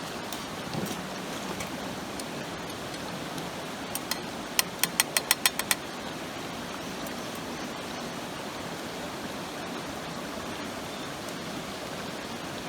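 Gorge river flowing steadily. About four seconds in, a quick run of about eight sharp clicks cuts through it, then the water carries on alone.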